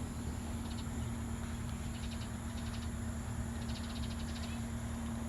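Steady low rumble with a faint steady hum, and four short bursts of rapid, high trilling from an animal, spaced about a second apart.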